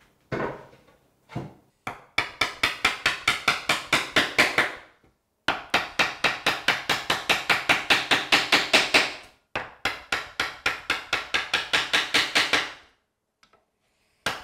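Chisel being struck in rapid light blows, about five a second, in three long runs, chopping the remaining waste out of half-blind dovetail sockets in a hardwood board. A couple of single knocks come first as the board is handled on the bench.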